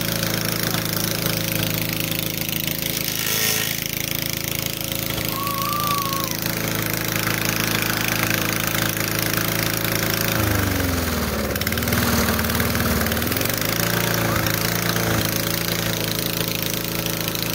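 Walk-behind rotary lawn mower's small petrol engine running steadily. About ten seconds in its pitch sags for a few seconds, then picks back up. Right at the end the engine begins to wind down.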